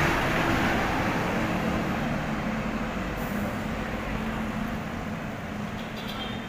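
A large passenger bus passing close by: its diesel engine hum and tyre rush are loudest at first, then fade steadily as it pulls away, leaving street traffic noise.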